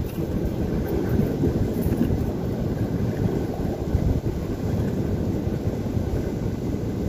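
Wind buffeting the microphone: a steady low rumble with no clear strokes or tones.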